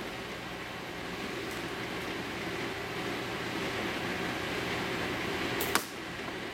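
Well MB03 L96A1 spring-powered bolt-action airsoft sniper rifle firing a single shot near the end, one sharp snap over a steady background hiss.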